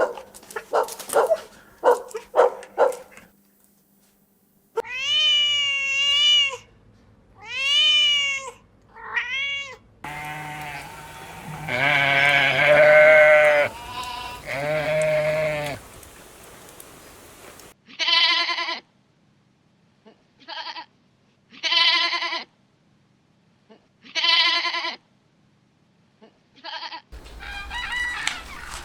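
Farm animals calling in a string of short clips: a quick run of clicking calls, three calls that rise and fall in pitch, a longer, rougher call, then five short bleat-like calls at about one-second intervals.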